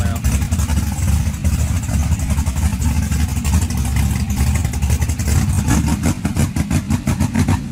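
Drag car's engine running at idle, a loud, heavy rumble with a choppy, uneven pulse.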